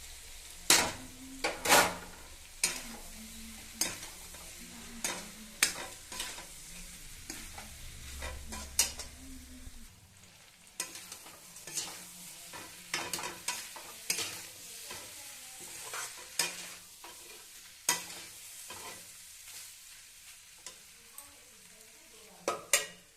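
Potatoes and spices frying in hot oil in a pan, stirred with a spatula: a steady sizzle broken by frequent irregular scrapes and knocks of the spatula against the pan.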